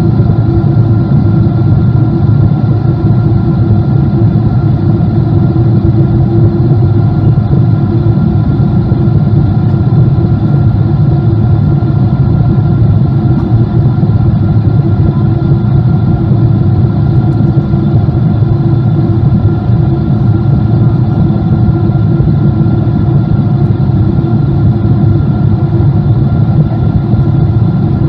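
Cabin noise of a Boeing 777-200 in flight: the steady drone of its twin jet engines and the airflow, a deep rumble with a few steady whining tones above it.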